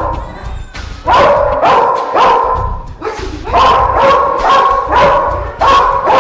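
Dog barking repeatedly, about two barks a second: a run of three, a short pause, then five or six more.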